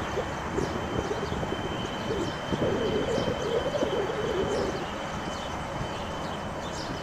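Outdoor ambience: a low, uneven rumble of wind on the microphone, with birds chirping and calling and a steady high thin tone.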